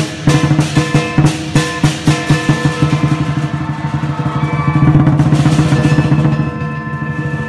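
Lion dance percussion: a large drum beats about three strokes a second under ringing cymbals and gong. Around the middle it speeds into a fast, loud roll, then eases off near the end.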